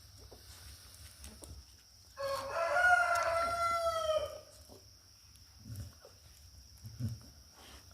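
A rooster crowing once, a single call of about two seconds that holds its pitch and then sags slightly at the end.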